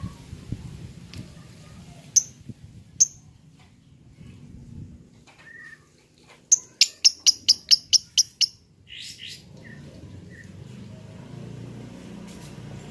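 Lovebird chirping: two sharp high chirps, then near the middle a fast run of about ten chirps at about five a second, followed by a couple of harsher notes.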